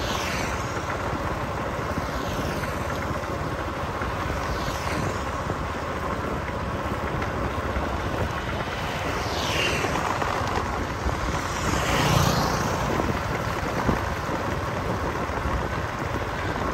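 Steady road and wind noise from a vehicle driving along a city road, with other vehicles passing now and then; the loudest pass comes about twelve seconds in.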